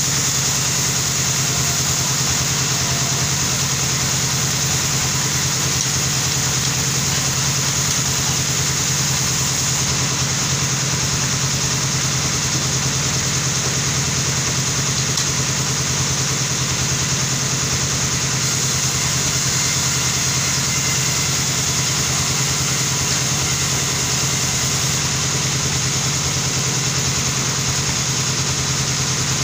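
Sawmill machinery running steadily: a continuous engine-like drone with a high hiss, unchanging in pitch and level.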